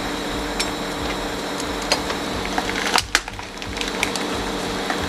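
Heavy recovery crane's engine running steadily under load, with scattered metallic clicks and clanks from the lifting gear. A sharp double clank about three seconds in.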